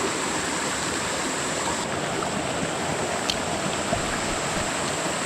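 Rainforest creek water rushing steadily over rocks and small falls.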